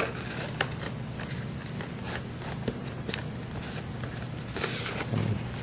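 Hands pressing a cardstock disc onto the underside of a cardboard tile: faint scattered rustles and small clicks of card on card, with a longer rustle near the end.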